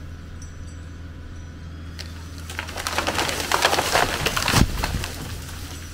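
A snag pulled down by a skidding winch: starting about two seconds in, wood cracks and branches snap and crash through the canopy, ending in a heavy thud as the tree hits the ground. A tractor engine runs steadily underneath.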